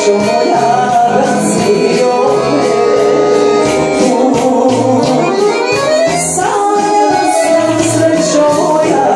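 Serbian folk-style music played live on two electronic keyboards: a lead melody with bending, ornamented notes over a bass line and a steady drum beat.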